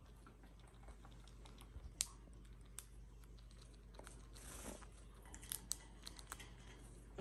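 Cockatiels cracking and nibbling dried banana chips with their beaks: faint, scattered clicks and small crunches, with a brief rustling crunch about halfway through.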